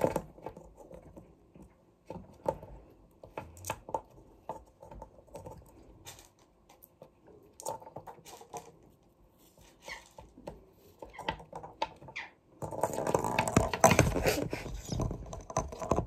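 Scattered light taps and clicks of a parakeet's feet and beak and a hollow plastic ball on a wooden tabletop. Near the end comes a denser few seconds of clattering.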